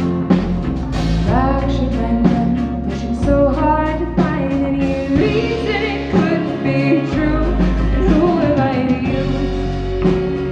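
Rock band playing a song with a lead vocal over drums, bass and other instruments.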